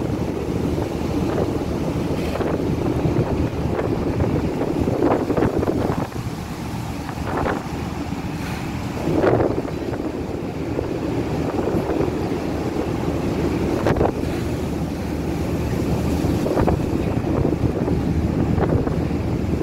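Gale-force wind buffeting the microphone in uneven gusts, over a steady rush of wind and rough sea.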